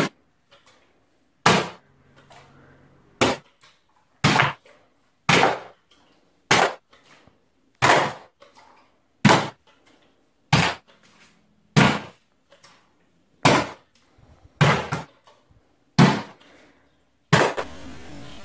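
A bottle thrown against a wall, hitting again and again: about fourteen sharp knocks, one every second or so, each cut off abruptly with silence in between.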